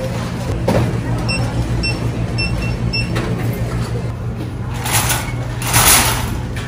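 Self-checkout barcode scanner beeping: five short, high beeps about half a second apart over a steady low hum. Near the end come two louder bursts of noise.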